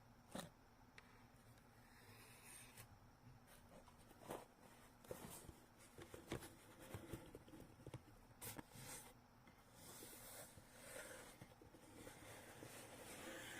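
Quiet handling of gift packaging being unboxed: soft rustling and scraping with a few sharp clicks and taps scattered through, and a longer stretch of rustling near the end.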